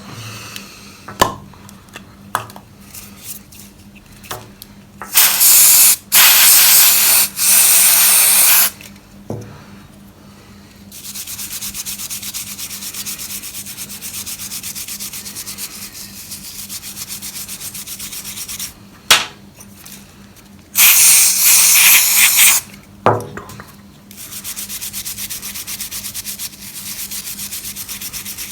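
Alcohol cleaning spray hissing from an aerosol can onto an amplifier circuit board in a few bursts, then steady scrubbing of the board to lift off solder flux and carbon. A second burst of spray and more scrubbing follow, with a few clicks of handling.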